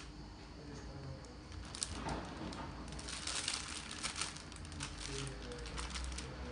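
Plastic piping bag crinkling and rustling as it is handled and filled with mousse, with scattered soft clicks and taps.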